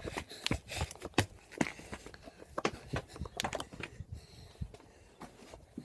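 Irregular footsteps and knocks of a handheld phone or camera being jostled as someone hurries along, a few short thumps a second.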